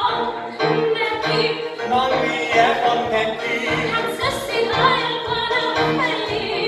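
Live singing of an old film song with piano accompaniment, sung melody over low bass notes repeating at a steady pace.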